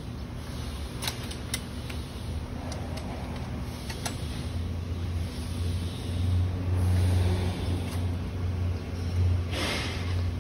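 Motor vehicle engine running, a low hum that grows louder in the second half, with a few light clicks in the first seconds and a brief rustle of canopy fabric near the end.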